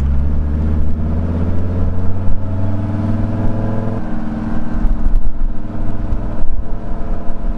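Mercedes T1 camper van's engine running as it drives, heard from inside the cab, with a steady drone that shifts abruptly about four seconds in.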